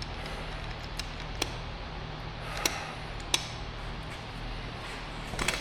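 A steady low hum with a handful of sharp, light clicks or taps scattered through it, and a quick cluster of them near the end.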